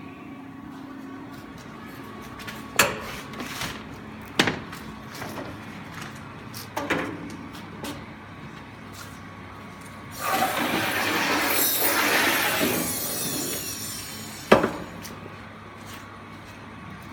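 Rewinding machine for perforated nonwoven wipes: a steady mechanical hum with several sharp knocks. About ten seconds in, a loud rushing noise swells and dies away over roughly four seconds.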